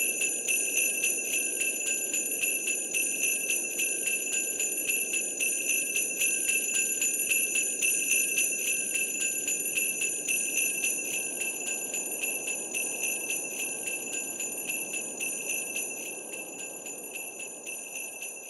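Sleigh bells shaken steadily in a fast, even rhythm, with a low background hiss, fading out gradually toward the end.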